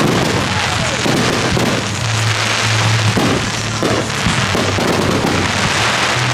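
Aerial fireworks going off in quick succession, a dense continuous crackle of bursts with no pause.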